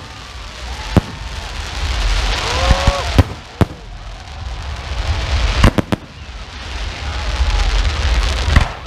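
Fireworks display: aerial shells bursting with about seven sharp bangs, three of them in quick succession just past halfway. Between the bangs, a broad hiss of burning stars swells and fades.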